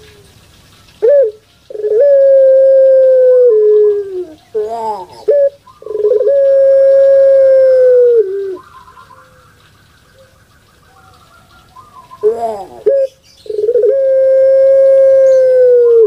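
Puter pelung, a domestic Barbary dove (Streptopelia risoria), cooing loudly three times. Each call is a few short rolling notes followed by one long held note of about two seconds that drops in pitch at its end, with a pause of a few seconds before the last call.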